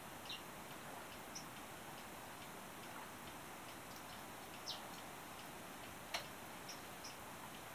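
Quiet kitchen room tone: a steady faint hiss with a handful of small, irregular clicks and ticks, the sharpest one about six seconds in.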